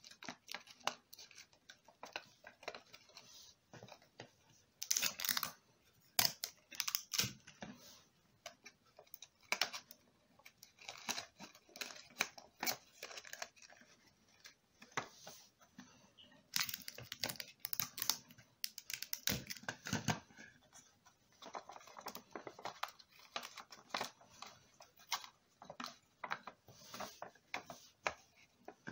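A sheet of A4 paper being handled and pressed together into a box by hand: irregular rustling and crinkling with light clicks and taps.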